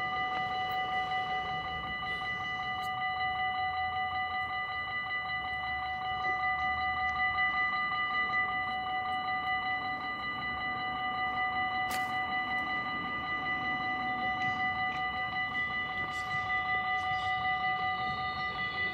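Level-crossing warning bell ringing continuously at one steady pitch, the rapid, even strokes of a closed railway crossing warning that a train is coming.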